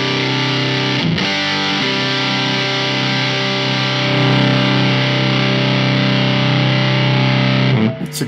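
Electric guitar chord played through the Vena Cava Filter pedal's distortion, struck about a second in and left ringing for several seconds while the pedal's gain knob is turned, growing a little louder about four seconds in.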